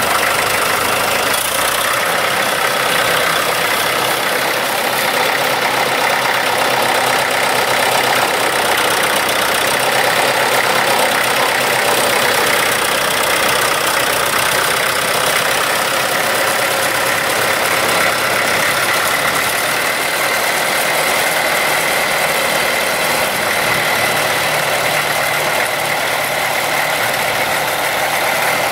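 Case 4.9 L four-cylinder diesel engine of a 1968 Case 830 tractor running steadily.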